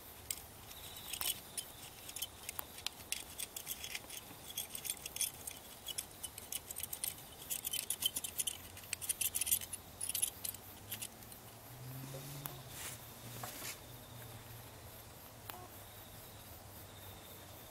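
Soldering iron dragged along the pins of a multi-pin component in drag soldering, with rapid faint crackling and ticking from flux and molten solder. The crackle is dense for the first ten seconds or so, then thins out to scattered ticks.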